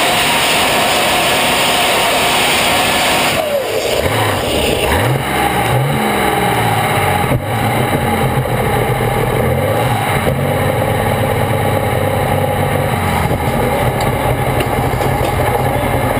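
International Harvester superstock pulling tractor's diesel engine running flat out, then the throttle is lifted about three and a half seconds in. The revs fall, swing up and down a few times, and settle into a steady lower run as the pull ends. One sharp knock about seven seconds in.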